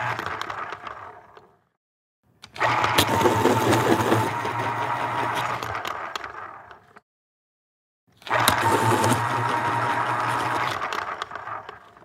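Pencil sharpener grinding in three spells of a few seconds each, with a steady whine and low hum. The first dies away about a second and a half in; the second starts about two and a half seconds in and stops abruptly; the third starts a little past eight seconds and fades out near the end.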